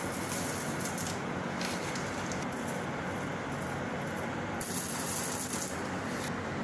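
Candy sprinkles poured from a bag onto a cake top, a dry rattling hiss in three spells, the longest near the end, over a steady background hiss.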